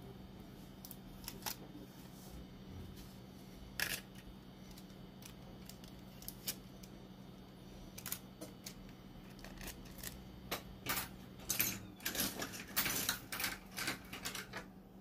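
Light clicks and taps of small metal tools being handled on a repair bench, sparse at first and coming thick and fast in the last few seconds, over a steady low hum.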